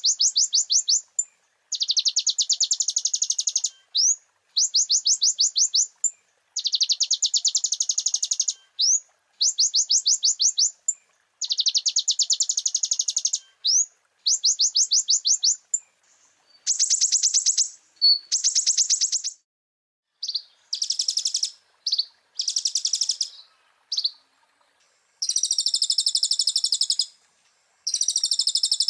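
Kolibri ninja (konin) sunbird singing: high, rapid trills of evenly repeated notes in bursts about a second long with short gaps, turning to denser, harsher phrases in the second half.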